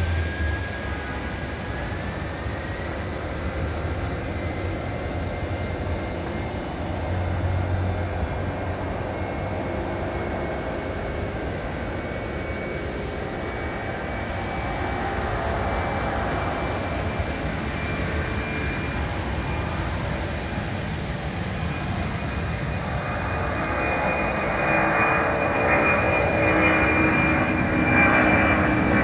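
Boeing 767-300ER freighter's twin jet engines at takeoff thrust: a steady jet noise with a whine that rises in pitch over the first few seconds. It grows louder near the end as the aircraft climbs past.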